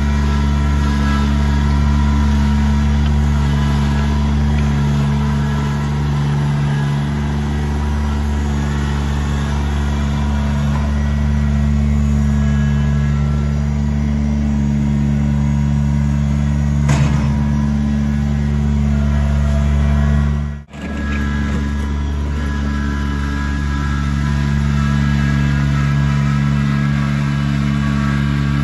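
Kubota BX2660 sub-compact tractor's three-cylinder diesel engine running steadily at a constant speed while it pulls a box blade across gravel. The sound drops out for a moment about twenty seconds in.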